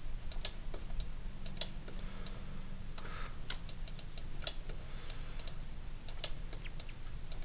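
Irregular clicks of computer keys and mouse buttons, some in quick pairs, over a low steady hum.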